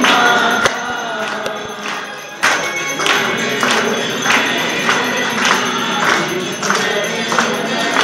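Group singing a devotional aarti song, kept in time by steady hand clapping at a little under two claps a second.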